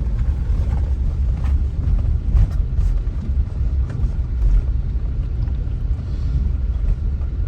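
Steady low rumble of a car driving, road and engine noise heard from inside the moving car, with a few faint knocks.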